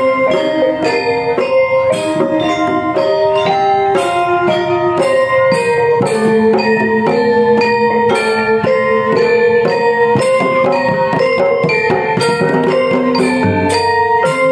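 Balinese Semar Pegulingan gamelan playing: bronze-keyed metallophones ring in fast, interlocking note patterns over a steady pulse, punctuated by regular sharp percussive strokes.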